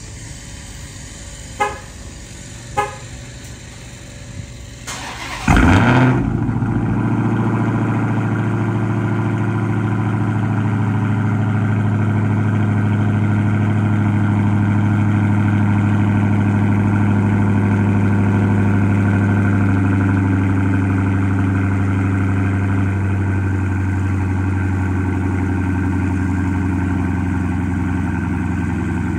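Two short chirps, then the supercharged 6.2-litre Hemi V8 of a Dodge Hellcat starts about five seconds in with a brief loud flare. It settles into a steady, deep idle through an exhaust with the mid muffler deleted.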